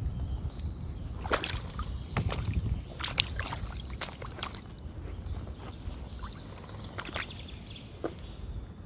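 Feet in sodden socks squelching and splashing through a muddy puddle: irregular wet smacks and sucks from the steps, over a steady low rumble.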